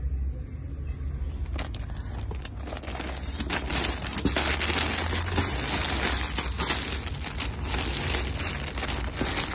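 Clear plastic packaging bags crinkling and rustling as bagged jeans are handled and shuffled in a box, starting about a second and a half in, over a steady low rumble.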